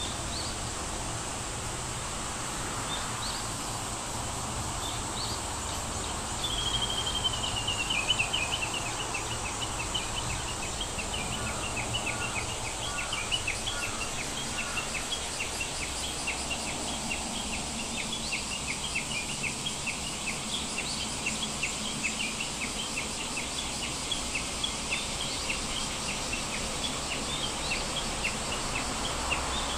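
Outdoor ambience with steady background noise and high chirping calls. A falling trill comes about seven seconds in, then short chirps repeat two or three times a second.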